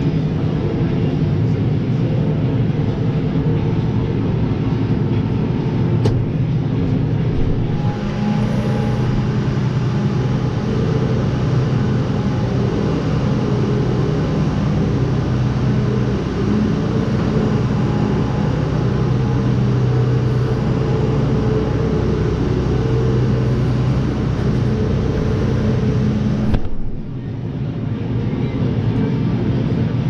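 New Holland tractor engine running steadily, heard from the cab, while a tipping trailer is raised by its hydraulics to unload grain. The engine note steps up about eight seconds in, and the sound turns duller abruptly near the end.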